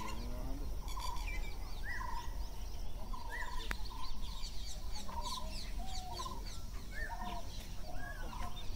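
Birds calling all around: short calls repeated about once a second, mixed with many high, quick chirps, over a low steady rumble.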